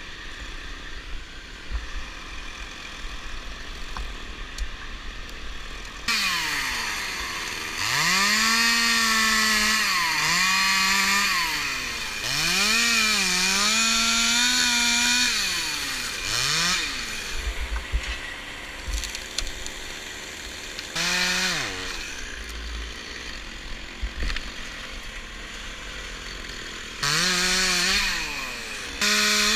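Chainsaw idling, then revved up and cutting wood from about six seconds in, its pitch dipping as the chain bites into the wood and rising again several times. Later come short bursts of throttle, with a final rev near the end.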